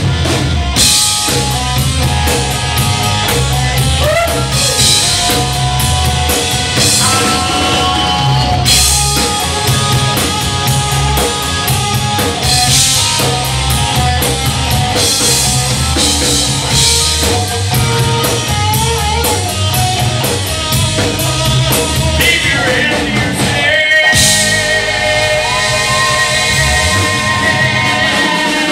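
Live rock band playing: electric guitar, bass guitar and drum kit driving a steady beat, with a short break in the bass and drums near the end.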